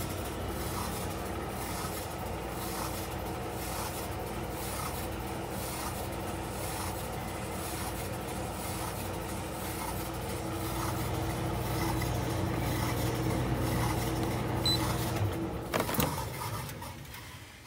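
COSTWAY 1700W portable electric tumble dryer running: a steady motor hum under the noise of the turning drum and fan, blowing only cold air because it is not heating. About fifteen seconds in the hum cuts out, followed by a few clicks as it winds down.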